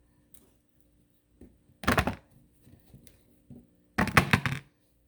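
Potatoes dropped into a container on a kitchen scale, knocking and clattering together: one short burst about two seconds in and a longer one about four seconds in.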